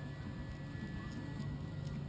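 Faint background music over a steady low hum, with a few light clicks.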